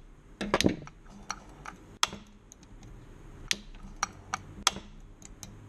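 Irregular light metallic clicks and taps, a dozen or so, from hands handling the chain brake assembly and clutch drum of a Stihl MS 270 chainsaw.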